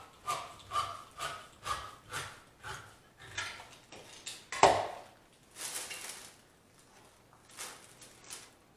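Hand-cranked can opener turning around the rim of a metal food can in steady strokes, about two a second, followed by a single sharp clank about four and a half seconds in, the loudest sound.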